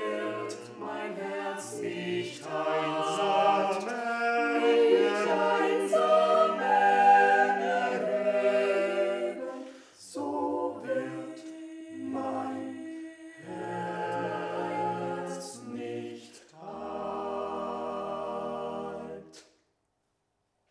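Small mixed-voice chamber choir singing a cappella. The piece ends on a held final chord that stops near the end.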